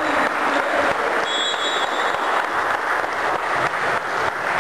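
Hand clapping and cheering from players and spectators in a sports hall, a dense, steady patter of claps, with a short high tone a little over a second in.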